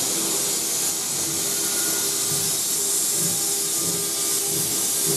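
Locomotive pulling slowly out of the station: a steady hiss with a held mid-pitched tone, and an uneven low throbbing from about two seconds in.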